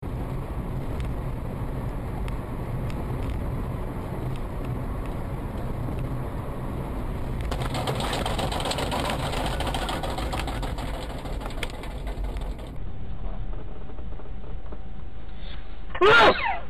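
Car interior engine and road noise recorded by a dash cam, steady with light clicks; about seven and a half seconds in it grows louder and rougher as a bus swerves close alongside, then cuts off suddenly. Near the end comes one brief, loud sound with a wavering pitch.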